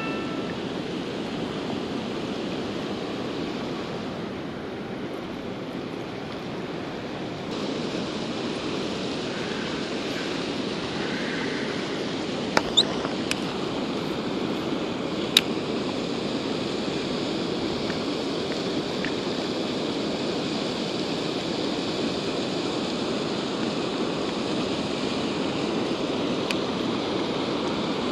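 Steady rush of water pouring over a spillway weir, with a few short sharp clicks about halfway through.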